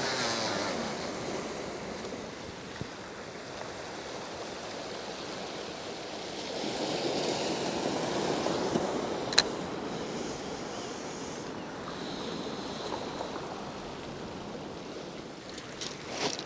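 Sea waves washing onto a shingle beach, with a louder surge for a few seconds in the middle. A single sharp click about nine seconds in.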